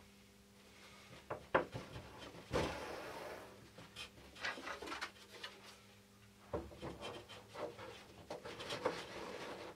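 Handling noise as a thin carbon-fibre tube is pushed into the support tube of a large foam model-airplane fuselage: scattered light knocks and clicks, with a longer rubbing scrape about two and a half seconds in.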